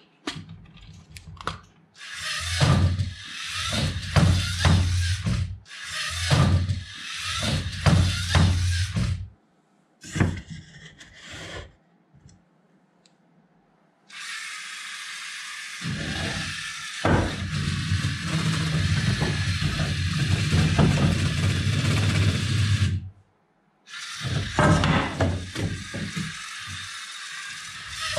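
Plastic Lego Technic parts clicking as a large tyre is fitted to the rover, then the Lego rover's electric motors and gears whirring steadily while it drives, with knocks as its wheels meet wooden boards.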